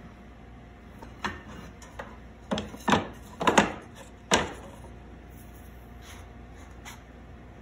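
Wooden boards knocking and clattering against each other as scrap hardwood pieces are shifted and pulled from a pile: about six sharp knocks, bunched in the first half.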